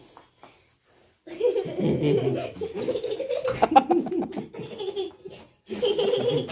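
Children laughing hard during rough play, starting about a second in after a brief quiet and pausing briefly near the end.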